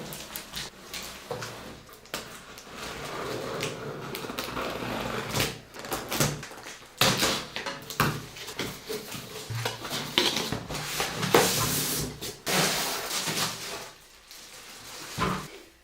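Irregular knocks, clicks and rustling of computer hardware being handled and fitted during a PC assembly.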